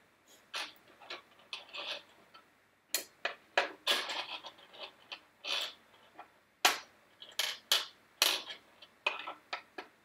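Small pegs of a nine-hole peg test clicking and tapping against a blue plastic pegboard and its dish as they are handled at speed: irregular sharp clicks, roughly one or two a second.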